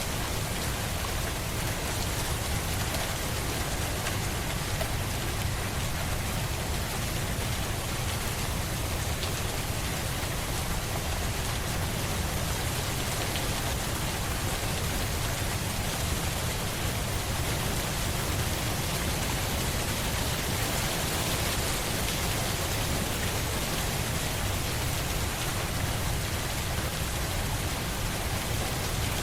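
Steady rain falling onto surfaces, a continuous even hiss with a low rumble beneath it.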